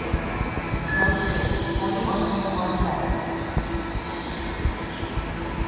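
Go-karts running around an indoor track, a steady mechanical drone with a brief high squeal about a second in.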